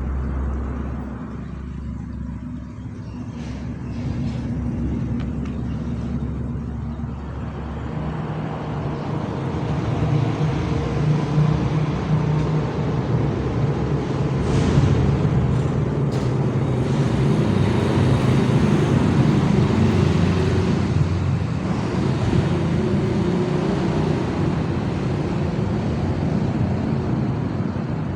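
An engine running steadily with a rushing rumble, growing louder about eight seconds in.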